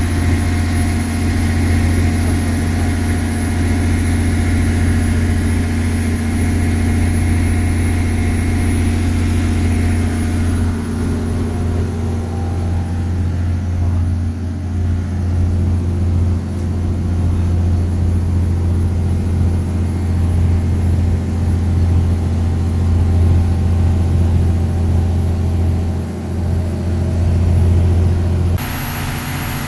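Fishing boat's engine running steadily, a deep drone with a constant low hum. The sound changes abruptly shortly before the end.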